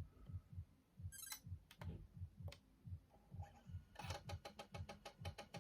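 Sony Mavica camera's built-in floppy disk drive working a 3.5-inch disk as a shot is saved: faint, even ticking about four times a second, with a few sharp clicks in the first half and a faster, denser ticking from about four seconds in.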